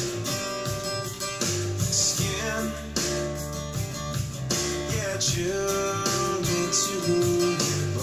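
Guitar-led recorded music played back through Infinity SM65 bookshelf speakers.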